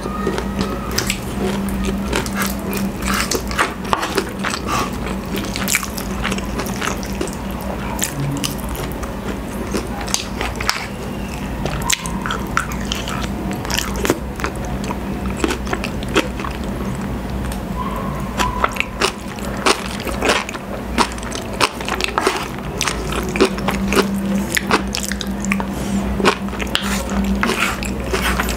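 Close-miked eating sounds: chewing, with many sharp clicks and scrapes of a wooden spoon and fork on a wooden plate, over soft background music.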